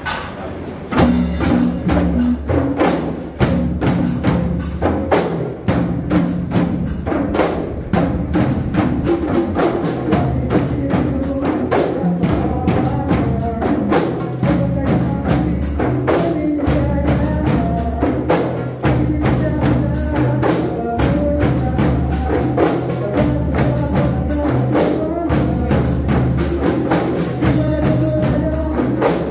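Kompang ensemble playing: many hand-struck kompang frame drums beaten in a fast, even rhythm, backed by congas, a large drum and a drum kit, starting about a second in. From around the middle a man's voice sings over the drumming through a microphone.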